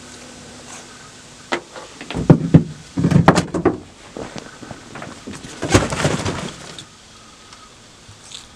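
Knocks and clatter of gear being handled and set down in a pickup truck's bed: a single knock, then a loud run of clatter, then a second shorter burst.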